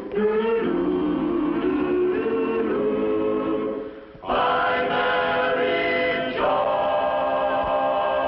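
A choir singing the closing phrase of a 1950s sitcom theme song in sustained chords, breaking off briefly about four seconds in, then swelling into a long held final chord.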